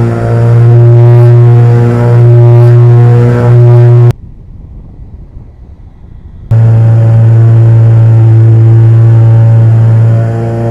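The motors of a twin-engine RC model plane, a Beechcraft Duke B60, droning loud and steady as picked up by the onboard camera. The sound cuts off suddenly about four seconds in and comes back just as suddenly some two and a half seconds later.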